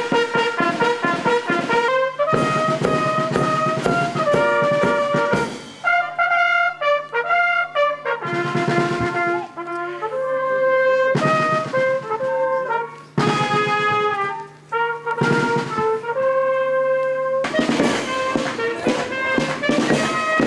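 A brass and drum marching band (fanfare) playing a melody: trumpets and other brass hold long notes over drumming, and the drums drop out for a few passages.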